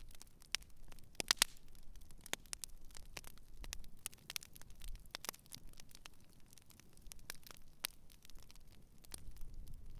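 Wood campfire crackling, with irregular sharp pops and snaps over a faint low rumble; a quick cluster of the loudest pops comes about a second and a half in.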